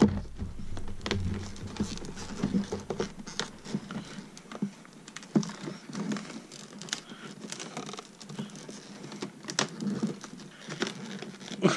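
Stiff clear-plastic clamshell packaging being pried and flexed by hand: a dense, irregular run of clicks, crackles and scrapes of hard plastic. The package is sealed tight and will not open.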